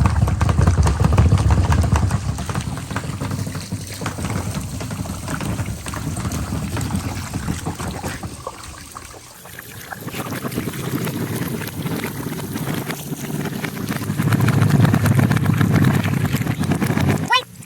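Many marbles rolling and clattering down a marble run track, a continuous rumble packed with small clicks. It dips a little after eight seconds in and swells again towards the end.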